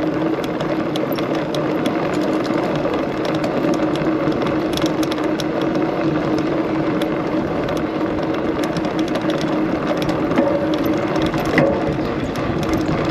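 Knobby mountain bike tyre rolling fast over cobblestones, heard close from a rear-wheel-mounted camera: a steady buzzing hum with many small rattling clicks, and a louder knock near the end.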